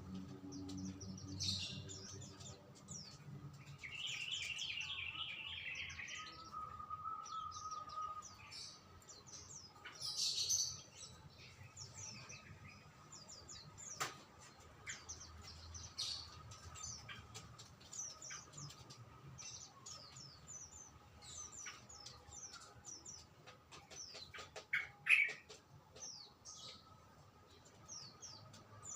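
Songbirds chirping and calling over each other in many short, high chirps, with a buzzy trill about four seconds in.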